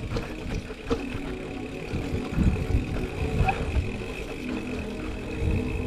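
Rumble and wind buffeting on a chest-mounted action camera as a cyclocross bike rolls over a bumpy dirt trail, with uneven low thuds from the bumps and a faint steady hum underneath.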